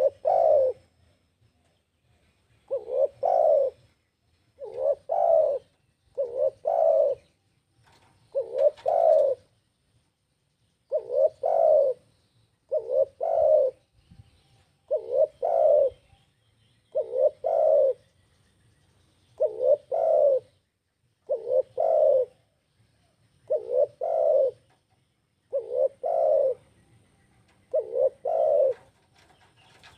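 Spotted dove (tekukur) cooing: low, repeated phrases about every two seconds, each a quick pair of coos.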